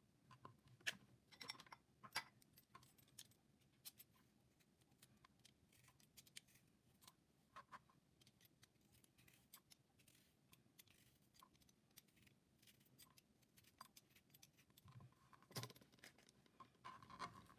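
Faint scraping and irregular small clicks as a knob of fresh ginger is peeled with a vegetable peeler over a plastic cutting board, with a few light knocks of a knife and ginger on the board.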